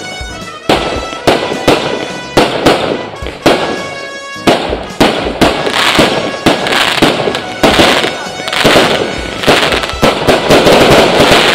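Aerial fireworks display: a rapid string of sharp bangs from shells bursting overhead, about two a second, turning into dense crackling from about five seconds in.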